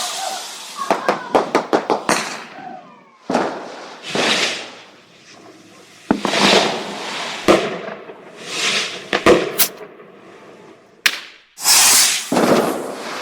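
Fireworks going off: several loud hissing swells about a second long, mixed with sharp cracks and bangs, some coming in quick crackling runs.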